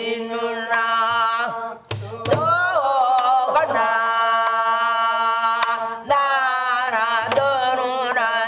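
Korean traditional-style singing: long held notes without words that waver and bend in pitch, accompanied by several drum strokes, a couple of them with a low boom.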